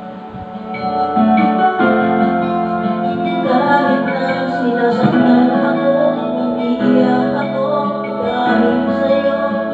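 Background music: held notes and chords that change every second or two.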